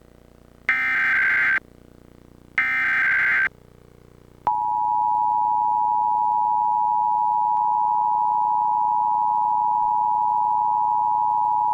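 Emergency Alert System test tones: two bursts of the SAME digital header, each about a second long, then about four and a half seconds in the two-tone attention signal (853 Hz and 960 Hz together) starts and holds steady.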